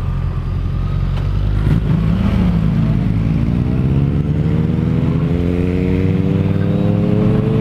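2015 Yamaha FZ-07's 689 cc parallel-twin engine, fitted with an Akrapovič exhaust, pulling as the bike accelerates in gear. Its pitch rises steadily from about two seconds in.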